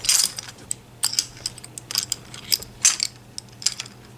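Irregular light metallic clicks and clinks, about a dozen, from handcuff and lock hardware being handled.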